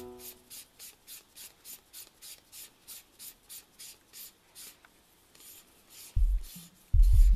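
Dry, rhythmic rasping, about three strokes a second, as the barrel of a Carenar 135mm f/2.8 lens is twisted back and forth in gloved hands. It fades out after about four and a half seconds. About six seconds in, background music with heavy bass thumps comes in and is the loudest sound.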